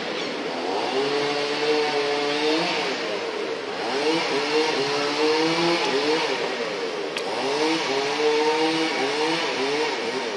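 An engine revving up and down in repeated rising and falling sweeps, over a steady background hum.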